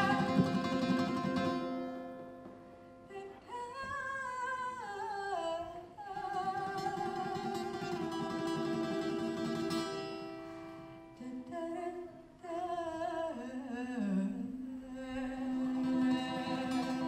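A woman singing a keroncong-style song in long held notes that slide from one pitch to the next, accompanied by plucked ukulele, acoustic guitar and bass guitar.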